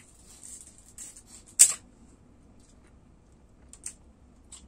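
Chopstick and its paper sleeve being handled: a light papery rustle, then one sharp click about a second and a half in, and two faint ticks near the end.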